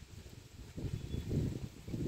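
Wind buffeting the microphone: a low, gusty, irregular rumble that swells near the end.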